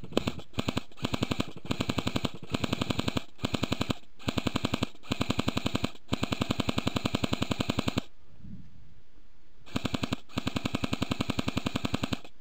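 Airsoft rifles firing full-auto: rapid, even strings of sharp cracks in short bursts, back to back for about eight seconds. After a pause of under two seconds come two more bursts near the end.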